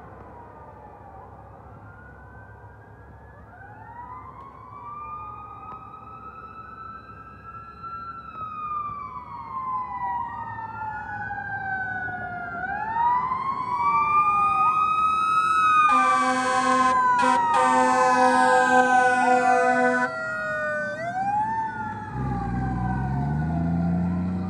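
Fire apparatus sirens, including a Federal Q2B mechanical siren, wailing up and down and growing louder as the ladder truck approaches. Air horn blasts run from about two-thirds of the way in for several seconds. Near the end the truck's diesel engine rises in pitch as it pulls close.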